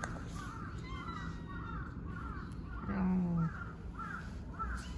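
A stray cat meowing over and over in short, high mews, about two a second. About three seconds in, a man's voice gives a brief low hum.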